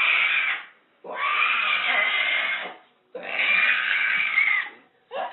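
An animal's loud, raspy, drawn-out cries, three in a row, each about one and a half seconds long with short pauses between.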